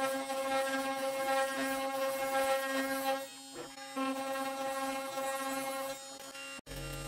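CNC router spindle running while its end mill cuts into yew wood: a steady whine over the cutting noise. It dips briefly about three and a half seconds in and breaks off abruptly near the end.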